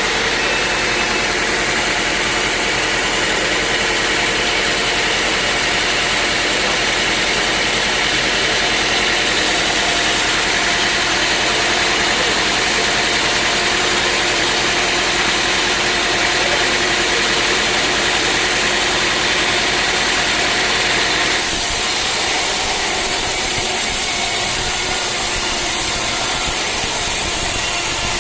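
Sawmill machinery running steadily: engine and saw noise with a constant hum of tones. The character changes suddenly about twenty-one seconds in.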